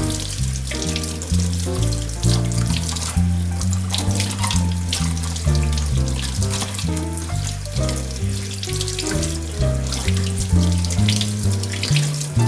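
Cold tap water running over an aloe vera leaf and splashing into a stainless steel sink as the leaf is rinsed. Background music with a changing bass line plays throughout.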